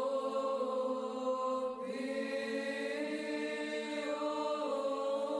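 Background chant: voices holding long, slowly changing notes over a steady low drone.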